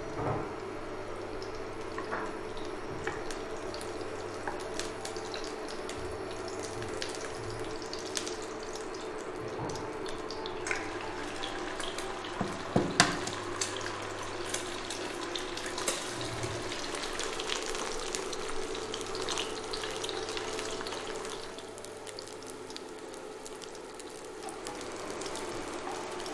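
Eggs frying in oil in a wok, a steady sizzle with scattered clicks and scrapes of chopsticks and a wooden spatula against the pan, the loudest a sharp clack about 13 seconds in. A steady low hum runs underneath, and the sizzle drops for a couple of seconds a little after 20 seconds in.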